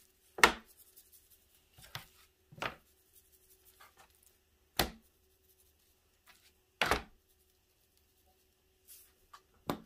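About six irregular knocks and thuds as raw pork spare rib slabs are picked up, turned and set back down on a metal sheet pan, with a faint steady hum underneath.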